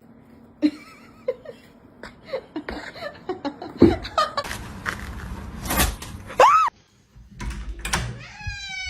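A jumble of knocks and thumps with short bursts of a voice, and a short high cry that rises and falls about six and a half seconds in and cuts off abruptly. Near the end a long, slowly falling cat meow begins.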